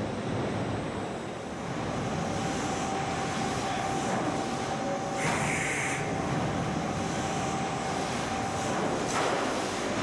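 Car assembly plant floor noise: a steady machinery rumble with a continuous hum tone, and a short hiss about five seconds in.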